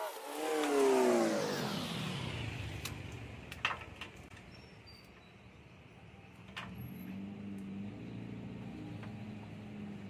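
A motor vehicle passes by, its engine note falling in pitch as it goes and fades away. An engine then runs steadily from about six and a half seconds in. A few light clicks sound in between.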